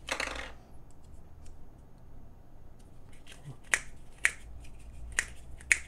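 Hard plastic deodorant stick clicking sharply four times in the second half as it is handled and turned, with a brief crinkle of plastic wrapping at the start.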